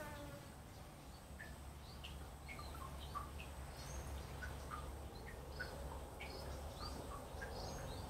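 Backyard birds chirping: scattered short, high call notes at varying pitches throughout, over a steady low hum.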